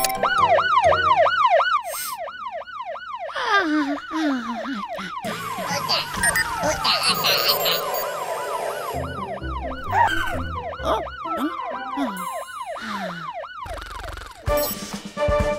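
Cartoon alarm siren set off by a pressed button: a fast yelping wail that rises and falls about four times a second. It sounds for about three seconds at the start and again for a few seconds later on, with other cartoon sound effects in between.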